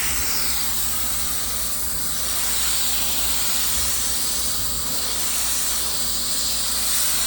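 Pressure washer spraying: a steady, loud hiss of high-pressure water hitting a surface, with a low steady hum underneath.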